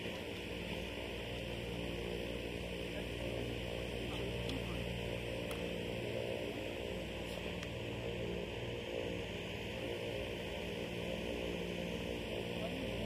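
A steady low hum with a light hiss, unchanging throughout.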